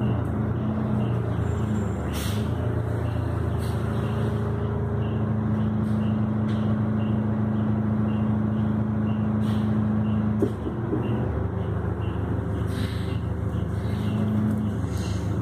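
City transit bus heard from inside while under way: engine and drivetrain running with a steady low hum. A higher-pitched drone over it drops out about ten seconds in, with a brief sharp sound at the same moment.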